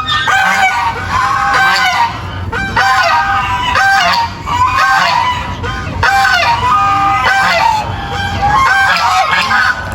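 Many farm animals calling at once: short honking calls overlapping in a dense, unbroken chorus.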